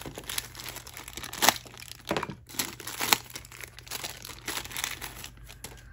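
Plastic wrapper around a blind-box figure crinkling and tearing as it is pulled open, in irregular crackles with sharper, louder ones about a second and a half in and again about three seconds in.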